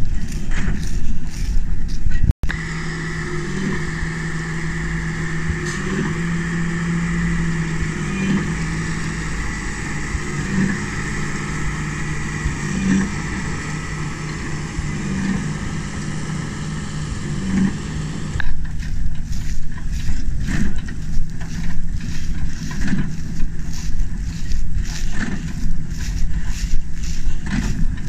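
New Holland 4900 large square baler and its tractor working in wheat straw. At first the sound is a rough, rumbling clatter with quick thuds; after a couple of seconds it turns to a steady drone with a regular knock about every two and a half seconds. Near the end the rough clatter returns.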